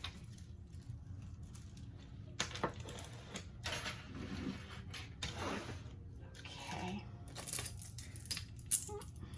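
Costume jewelry being handled and sorted: metal chains and beads clinking and rustling, with a run of sharper clinks near the end.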